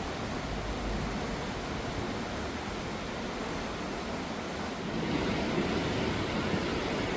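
River water flowing in a steady rushing hiss, growing a little louder about five seconds in.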